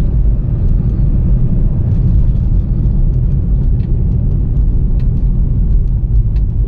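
Toyota Corolla being driven: a steady low rumble of engine and road noise, with small scattered ticks over it.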